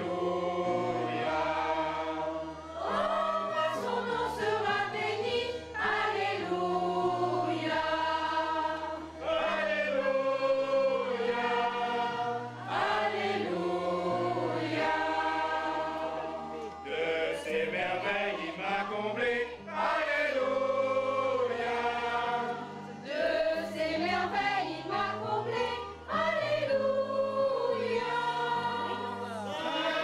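Choir singing, with low held bass notes from an accompanying instrument that change in steps beneath the voices.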